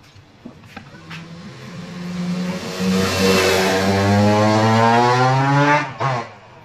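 A motor vehicle engine accelerating, its pitch climbing steadily for about five seconds, loudest in the middle, then cutting off abruptly near the end. A few light clicks come just before it.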